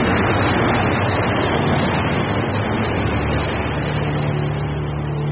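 Fishing trawler under way at sea: the boat's engine drones steadily beneath a loud rush of water and wind.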